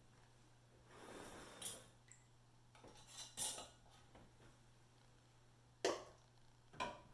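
Glass quart canning jars being handled and set into an aluminum pressure canner: a soft scrape and a few light clinks as a metal band is screwed onto a jar, then two sharp knocks near the end as a jar is set down inside the canner.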